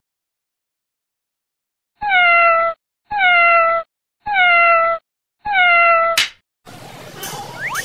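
A cat's meow, the same slightly falling call heard four times about a second apart, each an exact copy of the others. A sharp swish follows, and music starts near the end.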